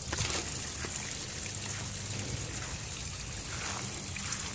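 Water spraying and splashing out of a boat motor's lower unit onto grass while it is flushed with a garden hose, a steady hiss, with a low steady hum underneath from the motor idling on the hose.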